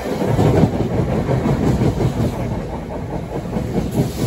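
NJ Transit commuter train's coaches passing close at speed: a steady rumble and rush with the clickety-clack of wheels over the rails.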